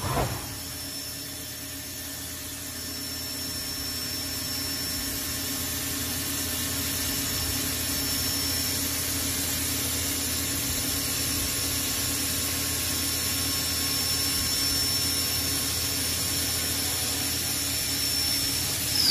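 CNC milling machine spindle running at speed while the end mill cuts a metal workpiece: a steady high whine over the cutting noise, growing louder over the first few seconds. Right at the end the whine drops away quickly.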